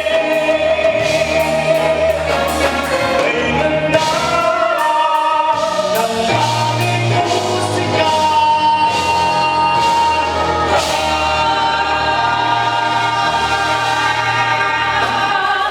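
Live pop vocal group singing long, held notes in harmony over a band, with steady bass notes and regular cymbal strokes.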